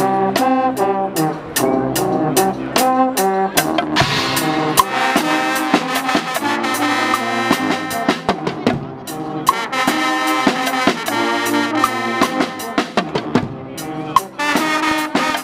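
Guggenmusik carnival band playing: a loud brass section of trumpets, trombones and sousaphones over a drum kit and bass drum keeping a steady beat, with a short break near the end before the brass comes back in.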